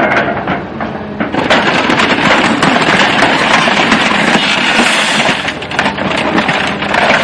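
Car crash: loud, rough crunching and scraping with many knocks and cracks that runs on for several seconds.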